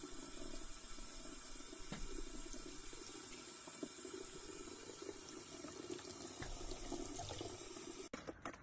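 Tap water running steadily and splashing into a mug in a sink, then cutting off abruptly near the end.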